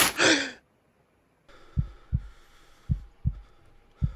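A short loud burst of noise as a paper bag is whipped off, then a heartbeat sound effect: slow paired lub-dub thumps, about one beat a second, over a faint steady hum.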